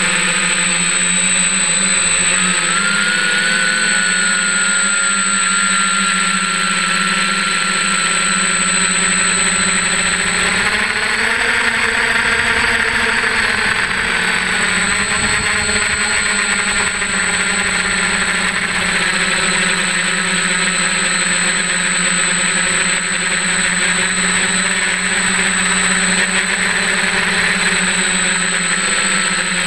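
F550 hexacopter's six electric motors and propellers buzzing steadily in flight, recorded from on the airframe. Their pitch climbs about eleven seconds in and settles back about five seconds later, over a constant thin high whine.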